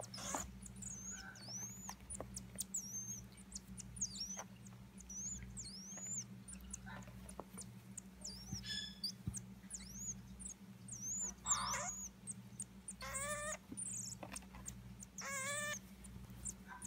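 Common marmoset giving a scattered run of short, high chirping calls.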